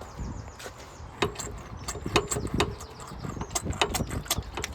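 A series of irregular sharp clicks and knocks, a dozen or so, over a low steady background.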